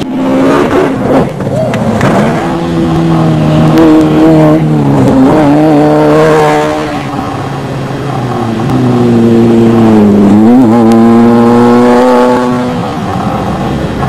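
Off-road desert race vehicles' engines running hard, their pitch sagging and climbing again as they lift off and accelerate. There are two loud passes with a quieter dip between them about eight seconds in.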